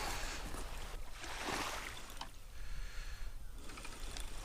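Small sea waves washing onto the beach, coming in soft swells about a second long over a low steady rumble.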